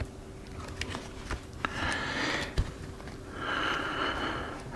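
Quiet handling of a plastic Flow Hive frame: light clicks and a soft knock as its cell pieces are pressed and snapped together by hand. Two soft breaths are heard, about two seconds in and again near the end.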